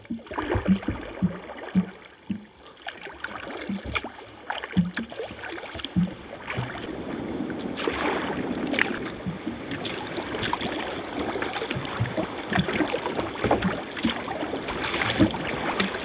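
Sea kayak paddling on choppy water: paddle blades dipping and splashing, water washing along the hull. A run of short low knocks and slaps comes in the first few seconds, then the water noise grows louder and steadier.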